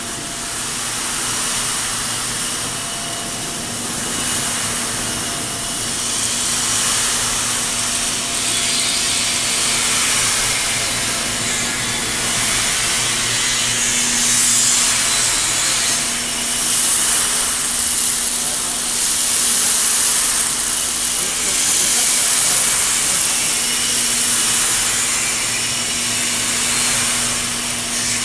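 Probat G75 drum coffee roaster running: a steady low hum under a loud, even rushing noise that swells and eases a little but never stops.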